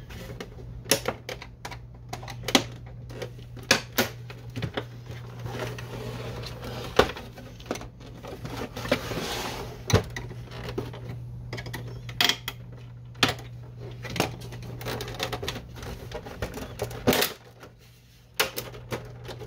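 Plastic snap clips of a printer's side cover clicking and snapping as they are pried loose with a screwdriver, with scattered sharp clicks and knocks of hard plastic throughout and a stretch of plastic scraping about halfway through.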